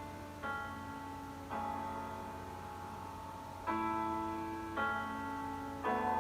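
Solo piano playing slow chords, five struck at uneven intervals, each left to ring.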